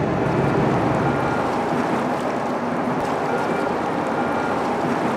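Steady rush of river water churning around a small tugboat, with the boat's engine running underneath.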